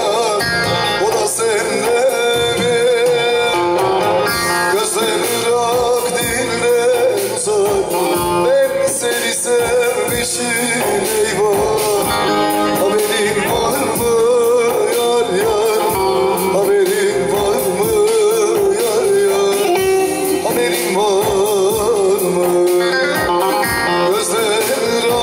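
A Turkish folk song (türkü) performed live: a man sings a wavering, ornamented melody to the accompaniment of a long-necked bağlama (saz).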